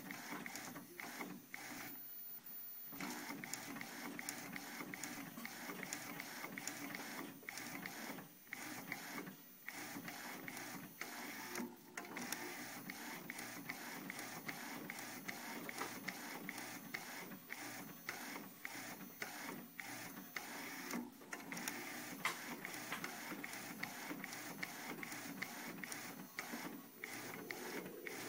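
T-shirt printing machine running as it prints black lettering onto a green shirt. It makes a steady mechanical whir with rapid, dense clicking, broken by a few brief pauses.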